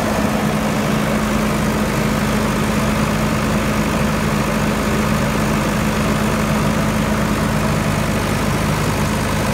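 Caterpillar E110B excavator's diesel engine running steadily, an even low hum with no change in speed.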